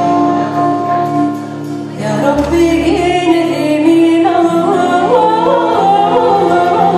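Song with sustained instrumental notes; about two seconds in, a singer's voice comes in with a wavering, ornamented melody.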